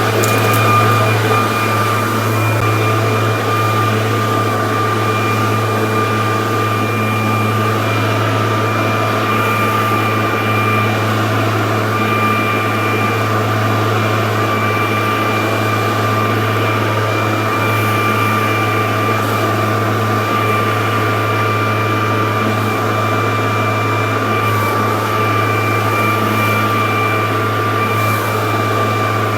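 Ryobi 40-volt battery-powered backpack leaf blower running steadily, a continuous rush of air under a high electric whine that rises to a steady pitch in the first second and then holds.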